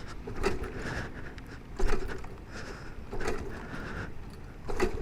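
Rain noise over a steady low rumble, with a few soft, irregular knocks.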